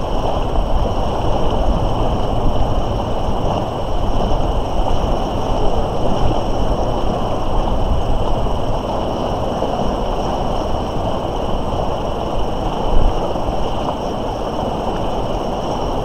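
Steady rushing noise of the Moira River's current flowing past a stone retaining wall in spring thaw, with a low, fluttering rumble of wind on the microphone. A faint steady high whine lies over it.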